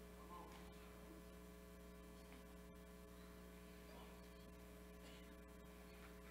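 Near silence with a steady low electrical hum and a few faint steady higher tones.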